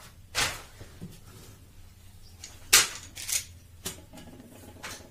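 Handling sounds on a desk: about five short, sharp clicks and knocks as small plastic items are picked up and put down. The loudest comes a little under three seconds in.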